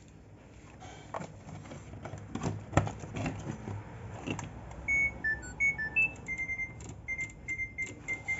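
Clicks and knocks from handling, then a Samsung front-loader control board's buzzer beeping from about five seconds in: a few short beeps at changing pitch, then a quick run of short beeps on one pitch, as the repaired board powers up and responds.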